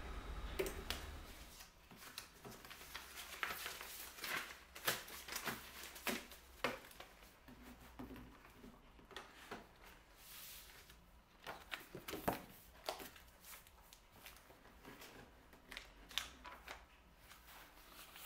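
Sheets of paper rustling as they are gathered, shuffled and leafed through on a desk, with scattered light knocks of things being set down.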